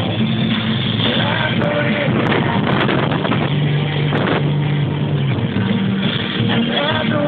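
Rock music with guitar playing loudly inside a moving car's cabin.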